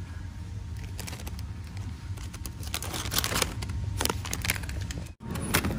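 Plastic packaging crinkling and rustling as it is handled on a shop shelf. The crinkling comes in quick clicking clusters from about two seconds in, over a steady low hum.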